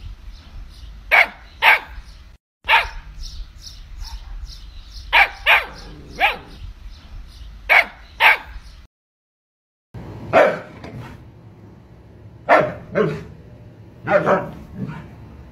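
Siberian husky barking: about fourteen short, separate barks, many in quick pairs, with pauses between. Low background rumble under the first part; the audio drops out for about a second roughly nine seconds in.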